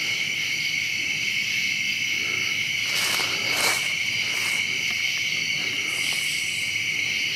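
Steady chorus of crickets, with a couple of brief faint rustles a little past the middle.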